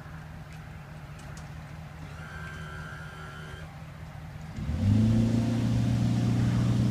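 Low steady hum of an idling engine; about two-thirds of the way in a much louder motor starts up and runs at a steady pitch, beginning to wind down at the very end.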